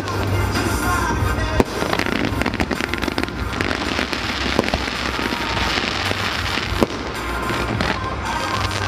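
Fireworks display: dense crackling from crackling stars and fountains, strongest in the middle, with about three sharp bangs, over loud music.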